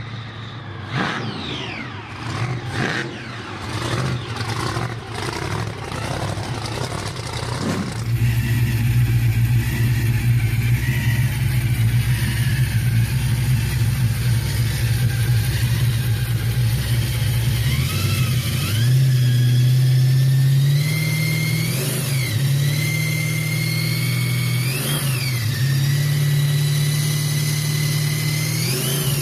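A big American muscle-car engine revving hard, its pitch rising and falling fast for the first several seconds. About eight seconds in it changes abruptly to a loud, steady, low-pitched run with a few short blips of the throttle near the end.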